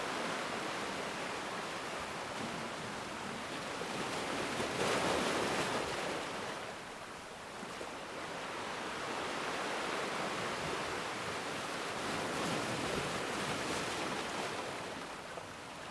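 Ocean waves breaking and washing on a shore, a steady rush of surf that swells twice and eases between.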